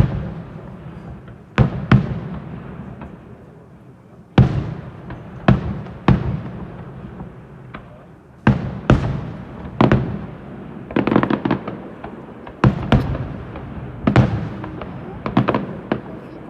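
Fireworks bursting overhead: an irregular string of loud bangs, roughly one a second, each dying away in a rumbling echo, with a quick cluster of crackling reports about two-thirds of the way through.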